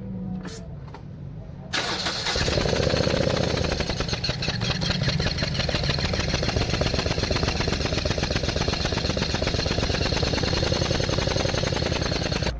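Toyota Corolla 1.8-litre four-cylinder engine cranked and starting about two seconds in, then running steadily. The spark plug of the misfiring cylinder is out of its hole and laid on its coil for a spark test.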